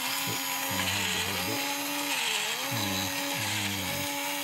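Small electric motor of a 1966 Transogram Construct-All toy construction set running with its plastic gears turning: a steady whir whose pitch keeps wavering up and down, with a lower hum that comes and goes. It is fed about 3.5 volts because it runs poorly at its rated 3, which the owner puts down to it needing to be run in.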